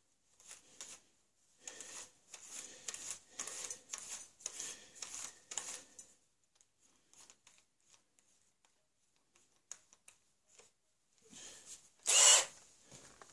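Irregular rustling and scraping for the first several seconds, then a cordless drill whirs briefly about twelve seconds in, ready for boring a thin 2–3 mm hole into the wooden rifle stock.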